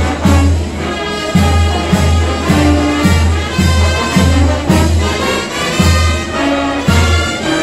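Brass band playing a slow processional march, low brass and a bass drum marking about one beat a second under the sustained melody.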